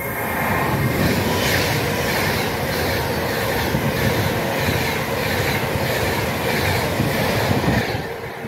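Class 390 Pendolino electric train running through a station at speed: a loud rush of wheels on rail and air, pulsing regularly as the carriages pass, then dropping away near the end as the last carriage clears.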